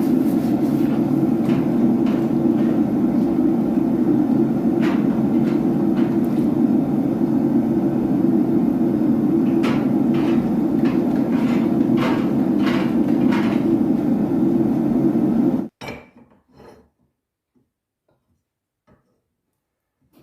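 Steady low roar of a running forge with scattered light metal clinks and knocks over it. It cuts off abruptly near the end, leaving near silence broken by a few faint knocks.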